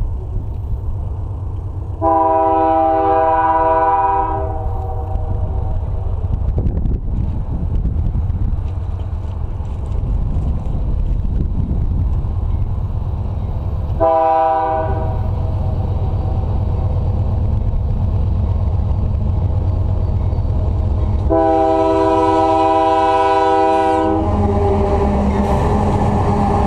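A GE AC4400CW diesel locomotive's multi-note air horn sounding for a grade crossing. There is a long blast about two seconds in, a short blast in the middle, and a long blast of nearly three seconds. Under the horn the approaching train rumbles low, and near the end the locomotive passes close by, its engine and wheels on the rails growing louder.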